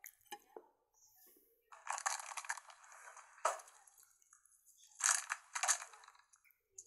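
Packaging crinkling and crackling as it is handled and opened by hand, in two spells, with a sharp click between them.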